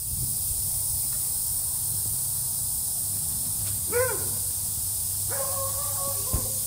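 Two animal calls over steady outdoor hiss and low rumble: a single short call that rises and falls in pitch about four seconds in, then a held, steady call lasting about a second shortly after.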